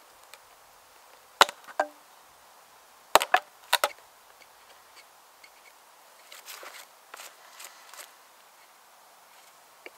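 Sharp wooden knocks and cracks from splitting a green ash log with an axe and a carved wooden wedge: two a little over a second in, the second with a brief ring, then a quick cluster of four around three seconds in. Softer rustling follows.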